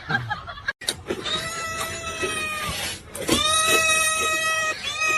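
A cat yowling in three long, drawn-out cries in a row, each held at one steady pitch, with short breaks between them.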